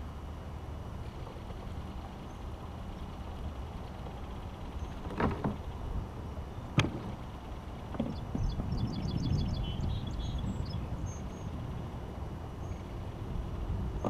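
A few knocks and one sharp click of gear being handled on a plastic fishing kayak, over a steady low rumble. A quick run of high chirps from a small bird comes a little past the middle.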